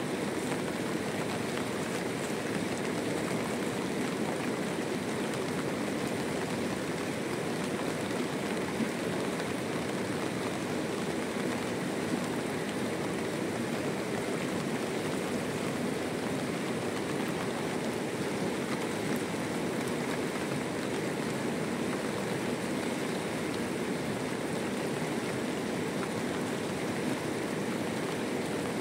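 Steady rain falling, an even, unbroken hiss of water.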